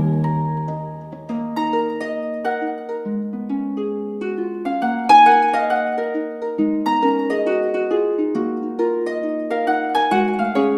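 Background music: a gentle melody of plucked notes that ring and fade, several sounding together.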